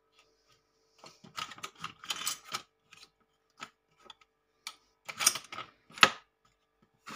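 Irregular clicks, taps and short scrapes of things being handled and moved on a kitchen counter, with one sharper knock about six seconds in. A faint steady hum runs underneath.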